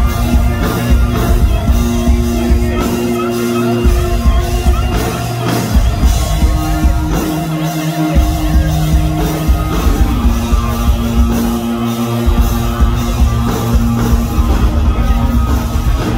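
A live hard rock band playing loud: electric guitars and bass holding riff notes over fast drumming.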